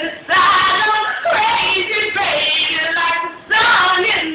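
A woman singing solo in a high voice: three sustained, wavering phrases with brief breaths between them.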